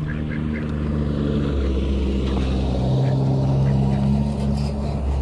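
Steady engine drone with a low hum and several held tones, shifting in pitch about a second and a half in and again around three seconds. A few faint duck quacks sound in the first second.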